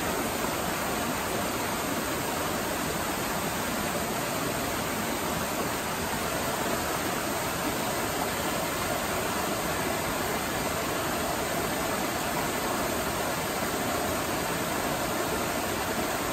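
Steady rush of a small waterfall, with the stream tumbling over mossy rock ledges.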